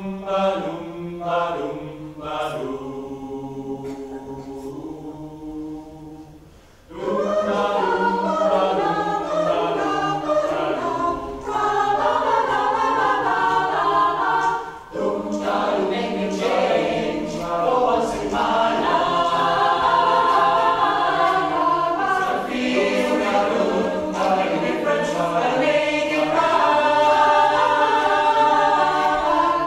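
Mixed choir singing in harmony: softer held chords at first, then the full choir comes in louder about seven seconds in and keeps singing.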